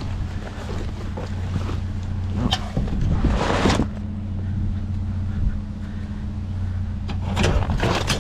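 Trash being rummaged through in a dumpster: bursts of rustling and clattering about two and a half seconds in and again near the end, over a steady low engine-like hum.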